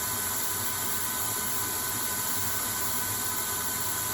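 CNC lathe running a light finishing pass on a D2 tool steel roller, with the steady hiss of spray-mist coolant and two faint steady tones from the machine.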